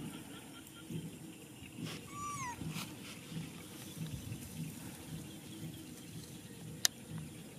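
A young macaque gives one short, squeaky call about two seconds in, its pitch bending down at the end. Near the end there is a single sharp click.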